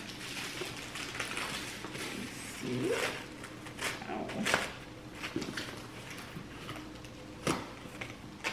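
Plastic packaging being handled: a padded poly mailer and the clear plastic wrap around a handbag crinkling and rustling, with sharp crackles about three, four and a half, and seven and a half seconds in as the wrapping is pulled apart.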